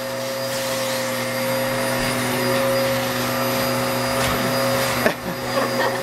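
Vacuum cleaner running steadily with its wand attachment on, a constant motor hum and whine over a rush of air, with one brief knock about five seconds in.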